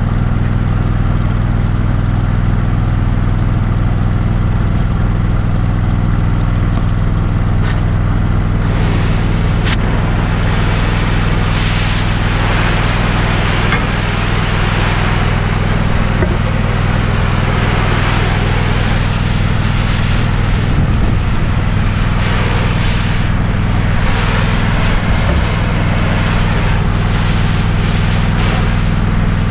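Oxy-fuel cutting torch hissing as it cuts a bevel into a steel plate, the hiss coming up strongly about nine seconds in and swelling and easing after that. Under it an engine drones steadily throughout.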